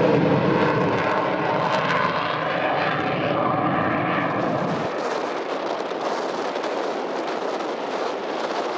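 Eurofighter Typhoon's twin EJ200 turbofans running as the jet flies overhead, a steady jet noise with engine tones in it. About five seconds in the sound changes abruptly and loses its low rumble as the footage cuts to another pass.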